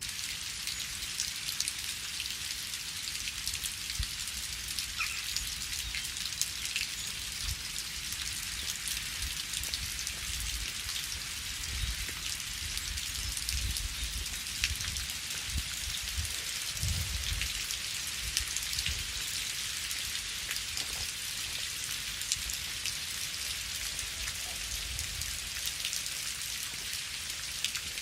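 Steady rain falling: a dense, even hiss with individual drops ticking close by, and a low rumble that swells and fades now and then.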